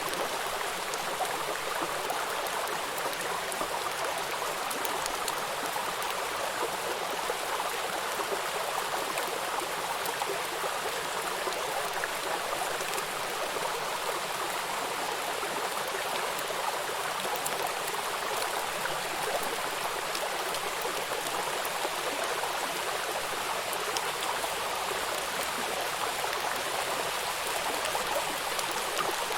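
Small stream running steadily: an even rushing hiss of water with fine splashes throughout.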